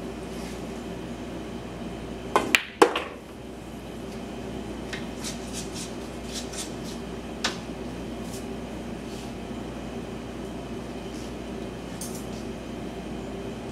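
Pool shot: the cue tip strikes the cue ball, then a sharp click of ball on ball and the object ball dropping into the pocket, a quick run of four clicks about two and a half seconds in. A few lighter taps follow over the next few seconds over a steady room hum.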